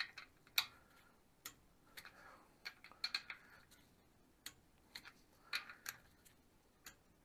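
Click-type torque wrench set to 14 ft-lb rechecking the oil pump cover nuts on an air-cooled VW Beetle engine: faint, irregular metallic clicks as the wrench releases at spec on nuts that are already tight, with small rattles of the socket being moved between nuts.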